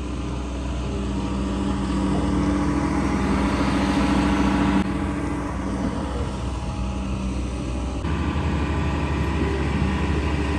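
Engine of heavy earth-digging machinery running steadily on a construction site. The tone changes abruptly twice, about five and eight seconds in.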